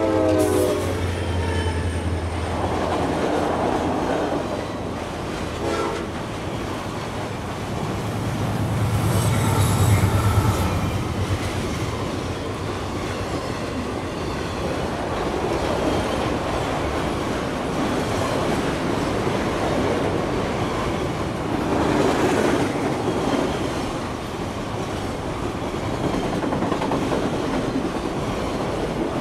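Continuous rumbling, hissing noise that swells and fades several times, loudest with a deep rumble about ten seconds in. A chord of horn-like tones dies away at the very start.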